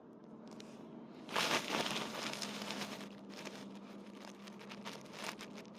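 Campfire crackling with many irregular sharp pops, with a louder rushing burst of noise about a second in.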